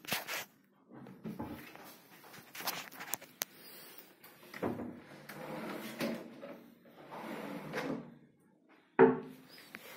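Modular kitchen cabinet doors being opened and shut by hand: a run of clicks, knocks and clatter, with one sharp knock about nine seconds in, the loudest.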